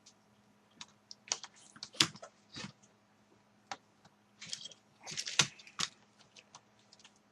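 Plastic laptop parts being handled as a small ribbon cable is worked into its connector: irregular light clicks, taps and short scrapes, with louder snaps about two seconds in and twice more near five and a half to six seconds.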